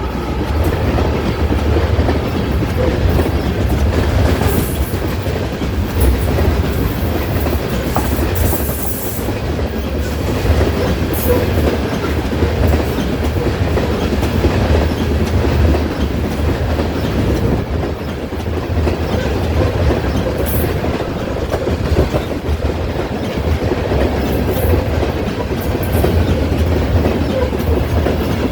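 Train rolling past: a continuous loud, low rumble of wheels on rail, with occasional brief clicks.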